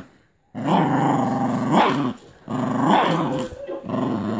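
American Pit Bull Terrier growling in play while tugging on a toy. After a brief pause, two long growls run back to back, and a third starts near the end.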